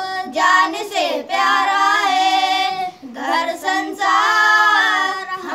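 Schoolboys singing a patriotic song together unaccompanied, in held sung phrases with short breaths between them.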